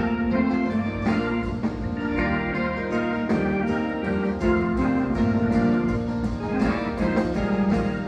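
Live band playing an instrumental break between sung verses, with guitar to the fore over a steady beat.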